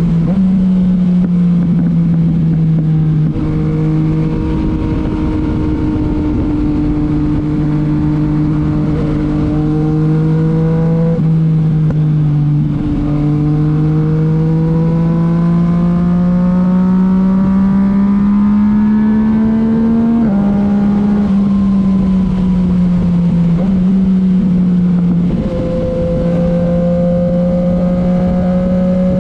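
Yamaha MT-09 three-cylinder engine through a titanium Akrapovic exhaust, heard while riding: the note climbs slowly as the bike pulls through the gears and drops sharply at gear changes, about eleven and twenty seconds in.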